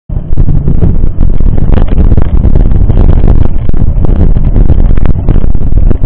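Mountain bike riding a rough trail, heard through the bike- or rider-mounted camera's microphone: heavy wind buffeting on the microphone with frequent sharp knocks and rattles from the bike over the bumps.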